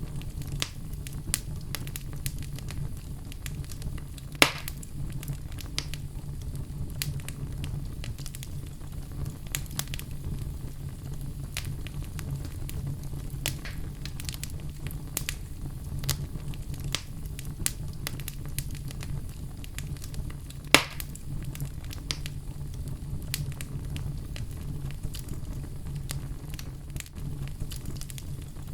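Outdoor wood fire burning with a steady low rumble and constant small crackles, and two louder pops, one about four seconds in and one about two-thirds of the way through.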